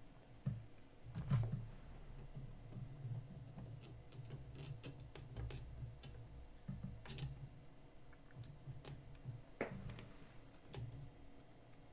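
Scattered light clicks and soft knocks of hands handling and setting up a record turntable, with a sharper click about a second in and another near the end.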